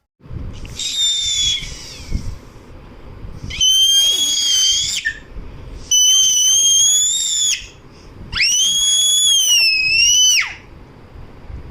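A baby squealing: four long, very high-pitched squeals, each held for one to two seconds and falling away at the end, with rustling and handling noise underneath.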